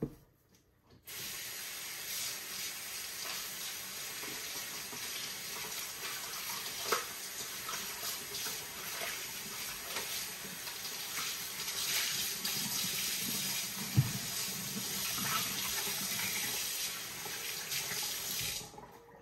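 Water from a faucet running steadily into a sink, turned on about a second in and shut off near the end, with a few small knocks in the sink along the way.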